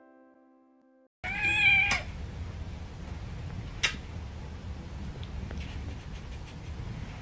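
A cat meows once, a short call with a bending pitch, about a second in. Before it, the last of some piano music fades away. After it there is a steady low hum with a single sharp click.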